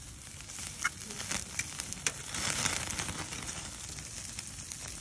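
Fire in a portable barbecue grill crackling and sizzling under the grate, with many sharp irregular pops over a steady hiss that swells briefly near the middle.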